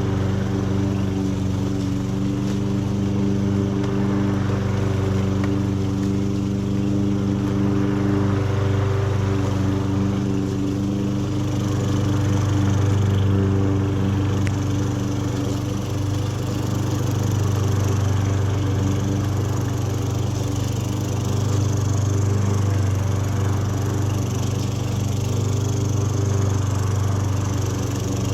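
Toro 22-inch Recycler push mower engine running steadily, its speed holding with only small swells. It is running on a new carburetor that replaced the wrong one which had kept it from starting.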